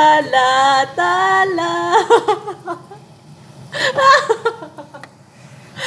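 A woman's voice singing a few long, held notes that step in pitch during the first two seconds, followed by short snatches of voice and laughter.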